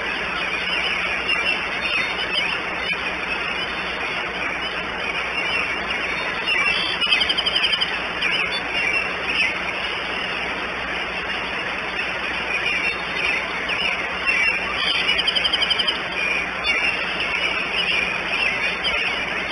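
Steady rain hiss and patter in woodland, with small birds singing; a fast trill sounds twice, about seven seconds in and again about fifteen seconds in.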